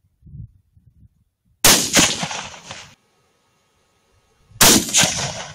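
Two rifle shots about three seconds apart, each a sharp crack followed about a third of a second later by a second crack, then dying away over about a second.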